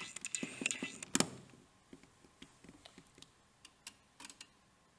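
Short plastic-and-metal clicks and taps of insulation-tester test probes being set on the screw terminals of terminal blocks. There are several in the first second and a half, the loudest about a second in, then a few faint ticks.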